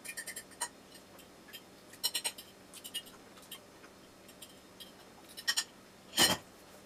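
A metal fork clicks and scrapes on a ceramic plate while a mouthful of raw meat is chewed, in scattered small ticks. About six seconds in comes one short, louder sound as he moves away from the plate.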